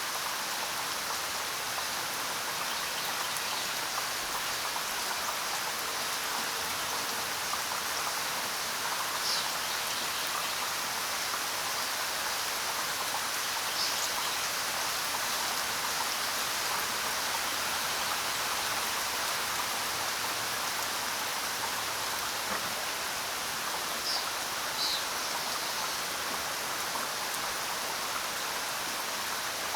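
Steady hiss of water, with a few short, high bird chirps scattered through it.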